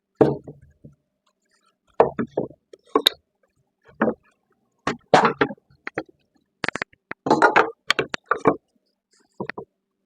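Wooden knocks, clunks and scraping as a cedar fence picket board is handled and positioned, in irregular short bursts with quiet gaps between.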